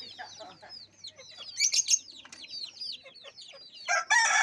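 Caged chickens: a steady stream of short, high, falling chirps and clucks, then a rooster breaks into a loud crow near the end.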